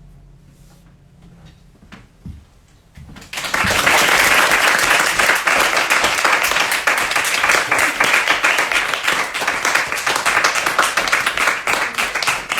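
The song's last acoustic guitar chord dies away, then about three seconds in an audience breaks into applause that carries on steadily.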